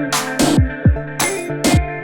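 Background music with a steady electronic beat: kick drums and sharp hits over held guitar-like tones.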